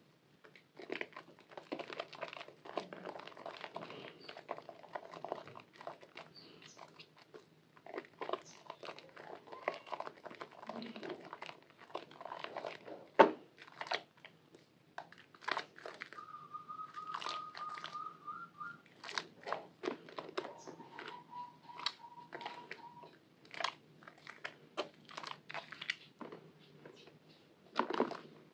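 Hands squeezing and kneading a soaked bar of white Purbasari soap in a basin of sudsy water: irregular wet squelches and crunches as the mushy soap and thick lather squeeze through the fingers, with one sharper crack about halfway. A faint whistle-like tone sounds twice in the background, each for a few seconds, about two-thirds of the way through.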